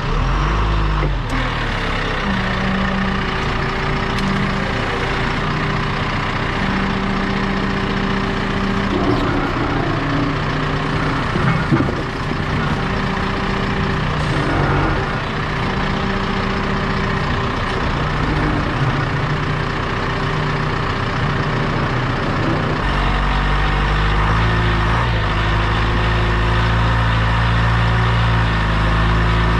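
A vehicle engine running steadily, its pitch shifting now and then, with a deeper, stronger rumble from about 23 seconds in.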